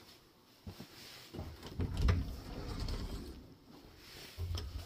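Bifold closet doors being pulled open: a few clicks and knocks from the doors and their track, with a louder stretch of low rumbling movement in the middle and another knock near the end.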